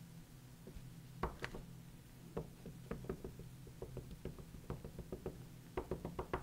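Black ink pad dabbed repeatedly against a stamp: a run of light, faint taps from about a second in, coming thicker near the end.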